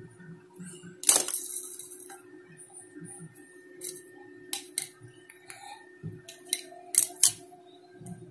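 Diagonal side cutters biting into and pulling plastic insulation off a stiff copper wire: a sharp snip about a second in followed by a short scraping as the insulation slides off, then several lighter clicks of the cutters later on. A faint steady hum runs underneath.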